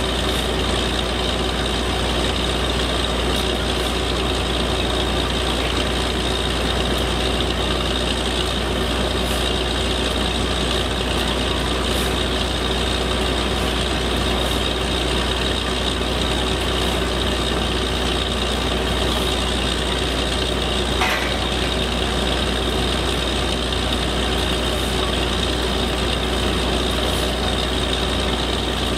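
Truck-mounted borewell drilling rig running steadily while drilling, its engine and air compressor driving the drill. One short click sounds about three-quarters of the way through.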